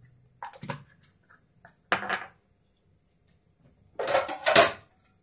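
Metal kitchen utensils and cookware clinking and clattering in three short bursts, the last and loudest about four seconds in.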